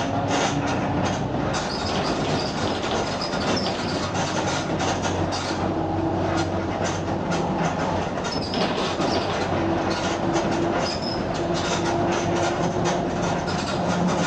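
Mercedes-Benz OF 1721 BlueTec 5 bus under way, its diesel engine at mid revs with a growling differential. A low hum and a slowly drifting whine run beneath frequent short rattles.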